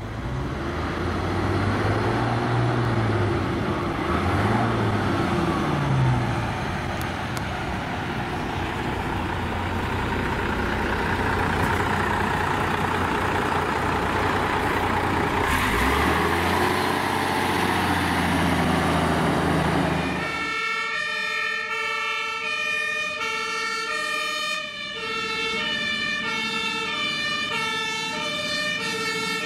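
A heavy diesel bus engine revs up and down through the gears as the vintage MAN bus pulls away and passes. About 20 seconds in, it cuts to several German two-tone fire-truck sirens, each stepping back and forth between a high and a low note, overlapping out of step.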